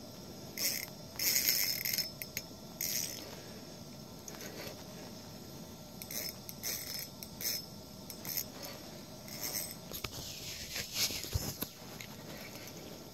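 A fishing reel cranked in short spurts, giving a quick clicking whir several times with pauses between, as a hooked lake trout is reeled up toward the ice hole.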